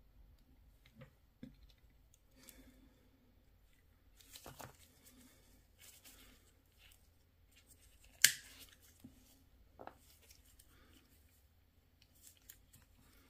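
Small clicks and scrapes of a Mercedes-Benz key fob's plastic housing being handled and worked apart by hand, with one loud sharp click about eight seconds in.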